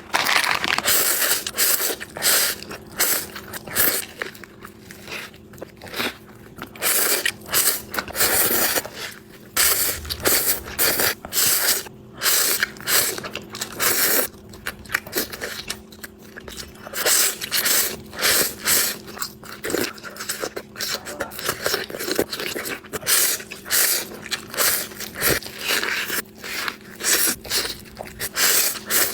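Noodles being eaten close to the microphone: irregular bursts of biting and chewing, many times over.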